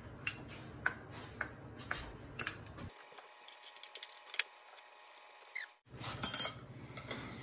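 A metal spoon clinking lightly against a small ceramic bowl and a plate as melted butter is spooned onto raw steaks: scattered light clicks, with a louder clatter about six seconds in.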